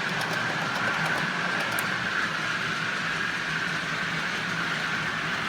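OO gauge model trains running on the layout: a steady whir of small electric motors and wheels on the track, with a constant high whine.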